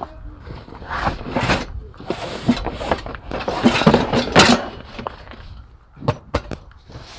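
Camping gear being pulled out of an SUV's cargo area: rustling and scraping of fabric bags sliding against each other and the load, including a stove's padded carry bag, with a few sharp knocks near the end.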